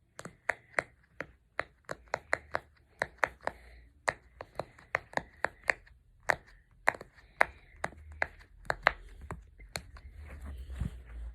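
Silicone pop-it fidget toy bubbles being pressed one after another, each giving a sharp pop, about two to three a second with short pauses between runs.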